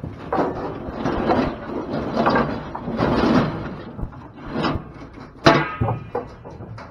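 Rattling and scraping of a livestock trailer's metal gate and the wooden loading-chute boards, then one sharp metal clang with a brief ring about five and a half seconds in.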